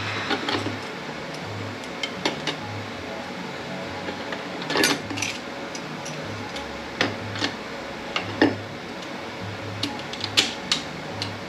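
Ford 10R80 automatic transmission parts being handled on a workbench: irregular sharp metal clinks and knocks as clutch plates and other hard parts are picked up and set down, the loudest about five, eight and a half and ten seconds in.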